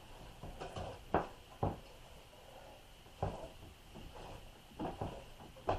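Hand-cranked meat grinder being turned as it grinds chunks of beef: irregular clunks and knocks from the crank and the board it is clamped to, about one a second.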